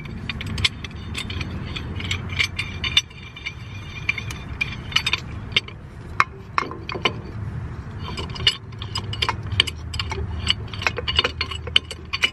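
Small metal clicks and clinks as a steel C-clamp is fitted over an old brake pad against a disc brake caliper and its screw is turned by hand, with a low steady rumble underneath.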